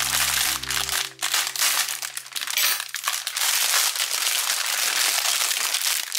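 Thin clear plastic packaging bag crinkling and rustling continuously as it is handled.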